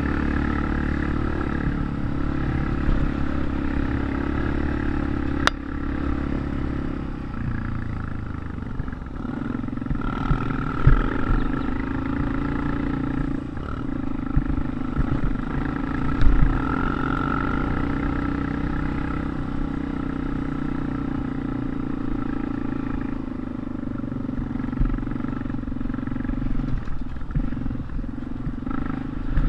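Dirt bike engine running steadily, settling to a lower pitch about a quarter of the way through, with a sharp click and a few louder bumps along the way.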